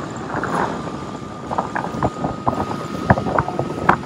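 Small open boat under way: the steady running noise of its motor mixed with wind and water, a faint steady whine through the middle, and scattered short sharp knocks.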